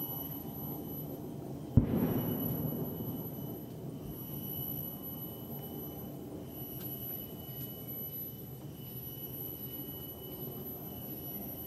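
A single sharp knock about two seconds in, followed by a brief rustle that fades within about a second, over steady low rumbling background noise and a faint high steady tone.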